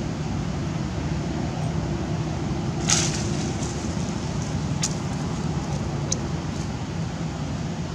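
Steady low rumble of road traffic or a running engine, with a few sharp clicks, the loudest about three seconds in.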